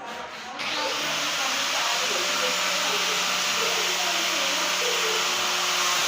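Handheld electric sanding tool switched on about half a second in, then running steadily with a loud, even noise and a low hum, as it works on wood.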